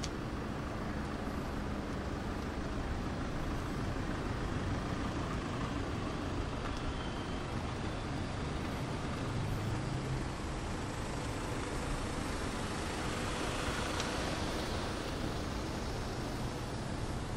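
Road traffic on a city street: a steady wash of vehicle noise that swells about three quarters of the way through, as of a vehicle passing close.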